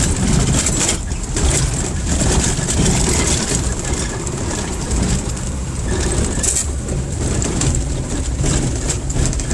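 A 4WD vehicle's engine working hard as it climbs a rough off-road track, a steady low rumble with frequent knocks and rattles from the vehicle jolting over the ground.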